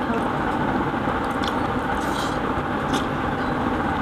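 Steady rumbling background noise, with a few soft clicks and squishes of hands mixing rice and curry on plates.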